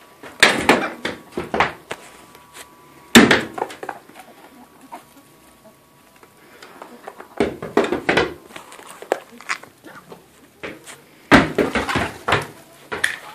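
Chickens clucking as they peck at scratch feed, with clusters of short rustles and knocks and one sharp knock about three seconds in.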